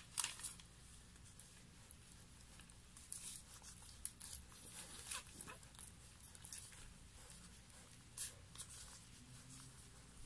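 Faint rustling and crackling of newspaper bedding as newborn puppies nurse and are shifted about by hand, with a few sharper crackles near the start, in the middle and about eight seconds in.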